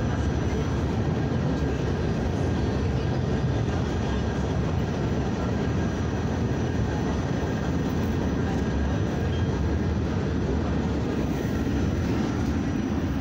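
New York City subway B train running along the tracks, heard from inside the car: a steady low rumble that does not let up, with faint steady high tones above it.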